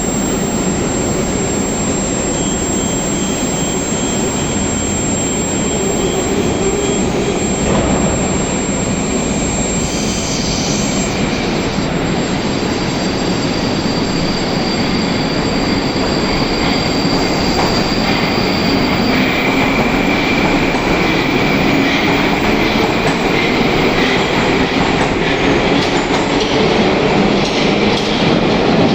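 Moscow metro train running through a tunnel, heard from inside the car: continuous wheel and running noise with high whining tones and some wheel squeal, slowly getting louder.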